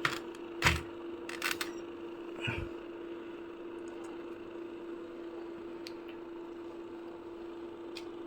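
A few sharp clicks and taps in the first second and a half, with one more softer tap a second later, over a steady, even electrical hum.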